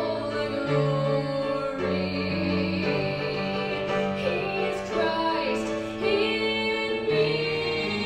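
Live music: piano and cello playing a slow song with singing on long held notes.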